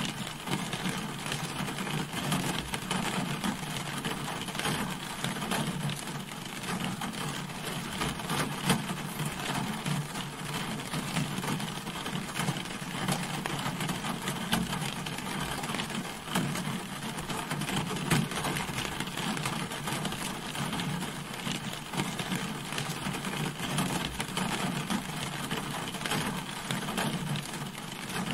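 Steady rain falling on a car, a dense, even patter of drops with a low drumming undertone.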